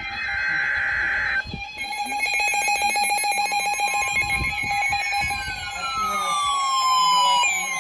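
A NOAA Weather Radio SAME digital header burst, a harsh two-tone data screech, ends about a second and a half in. Then weather radio alert tones sound together as several steady electronic tones, joined from about halfway by siren-like tones that fall in pitch, one after another.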